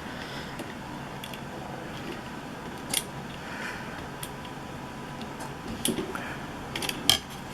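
Light clicks and taps from handling a small plastic electronic unit over a steady hiss: one click about three seconds in and a few more close together near the end.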